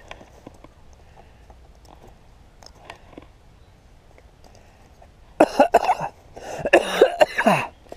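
A man coughing hard in two loud fits, about five and a half and six and a half seconds in, the second ending in a falling, throaty rasp. Before that there are only faint scattered clicks and rustles.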